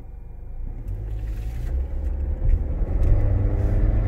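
2016 Nissan Rogue heard from inside the cabin under hard acceleration: engine and low rumble build up from about a second in, with a rattle from underneath near the center console. The mechanic takes it for a loose exhaust part rattling.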